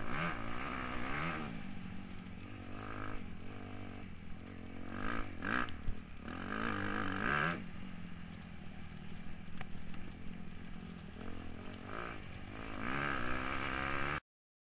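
Motocross bike engine revving up and down as it is raced around the track, pitch rising and falling with each throttle change, heard close from the rider's helmet camera. The sound cuts off suddenly near the end.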